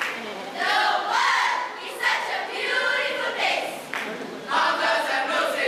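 A large group of teenage students performing choral speaking: many voices reciting a text in unison, blended together.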